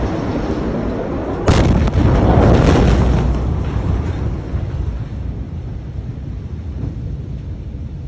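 Blast wave from the Beirut port ammonium nitrate explosion hitting the building: a sudden loud boom about a second and a half in, followed by a deep rumble with crackling for about two seconds that fades into a low noise.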